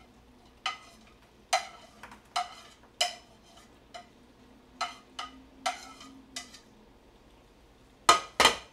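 Kitchen knife chopping green onion on a plastic cutting board: slow, uneven single chops, roughly one a second. Near the end come two louder clacks of dishes being handled.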